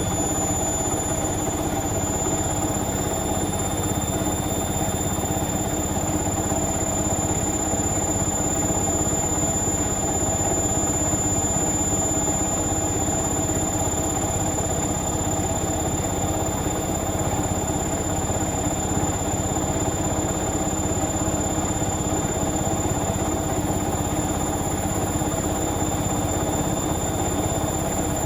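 Indesit Moon SIXL145 washing machine in its final high-speed spin: a steady running hum and whine, with a continuous high-pitched squeal from the door seal rubbing.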